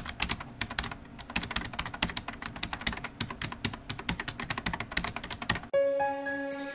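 Rapid computer-keyboard typing clatter, used as the sound of an animated text logo. It cuts off suddenly about five and a half seconds in, and soft music with held notes begins.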